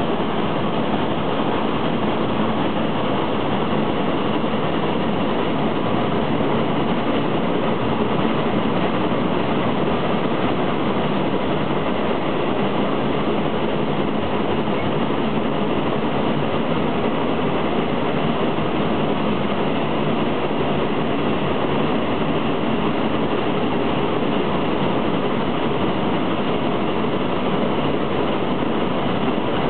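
Shay geared steam locomotive under way, a steady, unbroken din of the engine, gearing and wheels on the rails, heard from on board the locomotive.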